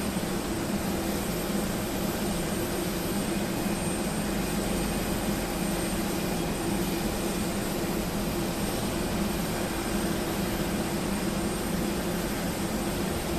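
Steady, unbroken engine drone with a low hum and a thin high whine above it.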